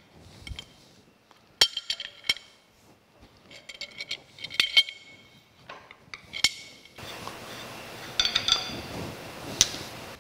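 Steel parts and a wrench clinking and knocking, several sharp metallic knocks with brief ringing, as a 1-inch milling arbor is seated in the spindle of a horizontal mill and its drawbar is tightened. A steady scraping noise runs through the last three seconds.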